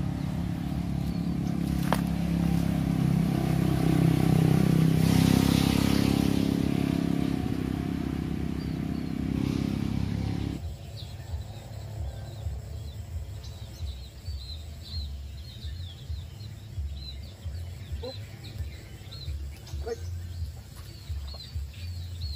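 A motor engine running steadily, swelling to its loudest about halfway through and then stopping abruptly about ten seconds in. After that, birds chirping many times over a low rumbling background.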